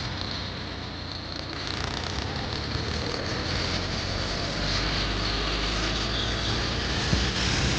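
Tractor diesel engine running with an aftermarket turbo whistle fitted on its exhaust silencer: a steady high whistle over the low engine note. The sound gets a little louder about two seconds in.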